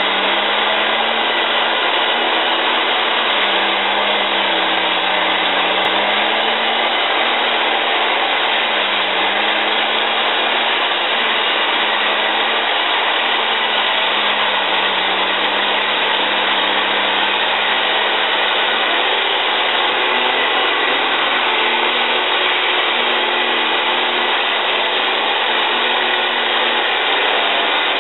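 CMI Hurricane C250 tracked forestry mulcher running flat out, its diesel engine and spinning mulching head grinding brush and small trees into chips. A loud, steady grinding drone whose pitch sags briefly a few times as the head takes load.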